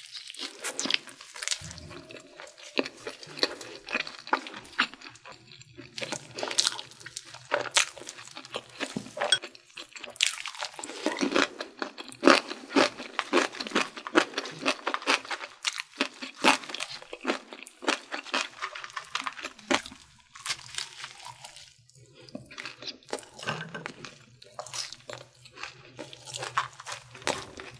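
Crunching and chewing of Korean fried chicken and French fries: quick, irregular crunches, thickest about ten to sixteen seconds in.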